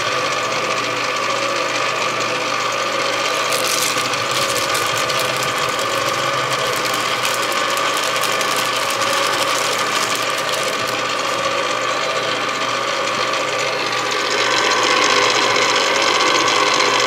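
Electric stand mixer motor running steadily, its beater working a thick cake batter in a stainless steel bowl as dry cake mix is added. The hum grows a little louder near the end.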